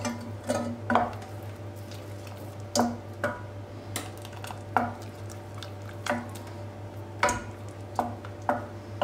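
Wooden spoon stirring thick caramel sauce in a stainless steel pot, a dozen or so short, irregular scraping strokes against the pot's sides and bottom. The caramel is freshly cooked and just off the heat.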